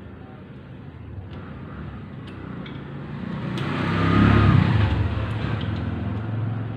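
A motor vehicle driving past on the street, its engine and tyre noise growing louder to a peak about four seconds in and then slowly fading. A few faint clicks sound along with it.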